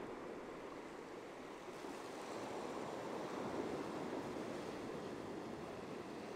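Ocean surf breaking and washing onto the beach: a steady rush of waves that swells slightly about two seconds in.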